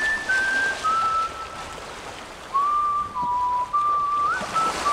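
Background music carrying a whistled melody: one clear line of held notes that steps down in pitch, with a quick upward slide near the end, over a soft hiss.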